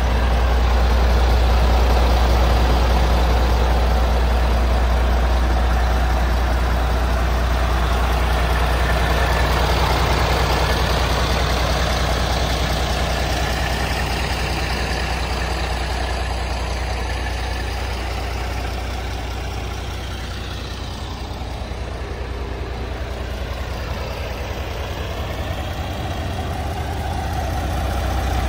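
Scania G400 tractor unit's 13-litre inline-six diesel idling, a deep steady hum that gets a little quieter past the middle and then louder again.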